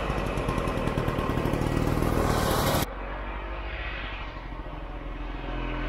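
Vintage two-stroke snowmobile engine running at speed on a trail, with a fast, rough firing pulse and a hiss of wind and snow. It cuts off abruptly a little under halfway through, giving way to a quieter steady engine sound.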